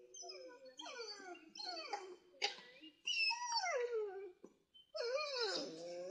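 Dog whining and howling in several drawn-out cries that slide in pitch, mostly falling, begging to be let out of its kennel cage.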